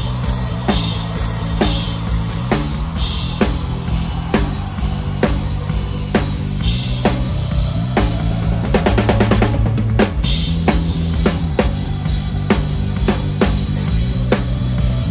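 A hybrid drum kit, Roland electronic pads with Turkish cymbals, plays a steady pop groove over the band's bass and keys. A quick fill of rapid strokes comes about nine seconds in, then the groove picks back up.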